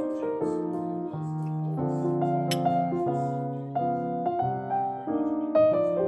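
Background piano music: a slow melody of changing notes over held low notes.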